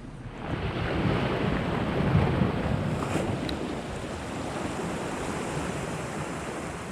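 Sea surging and washing against shore rocks, with wind on the microphone; the rush swells over the first couple of seconds, then holds steady.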